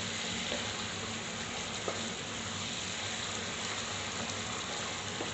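Chicken karahi masala (chicken, tomatoes and spices in oil) sizzling steadily in the pan during the bhuna roasting stage, with a few faint ticks.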